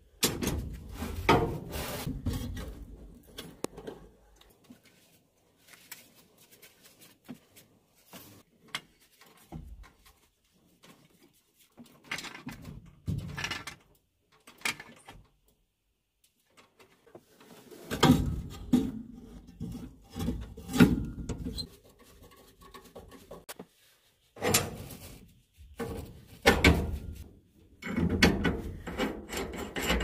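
Hand tools working a furnace gas valve off its steel gas pipe: irregular scraping, rubbing and clanks of metal on metal in scattered bursts with quiet gaps, louder clusters a little past halfway and near the end.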